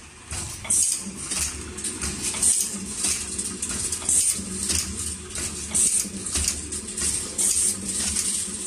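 Desktop two-spindle servo screw-driving machine at work fastening screws: repeated short hissing bursts every half second to a second over a steady low hum.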